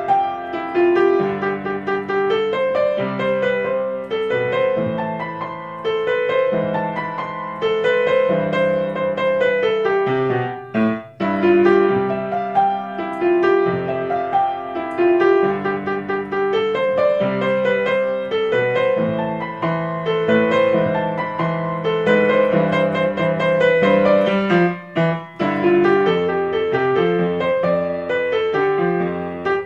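Background keyboard music: a light melody of evenly stepped notes, briefly dropping out twice.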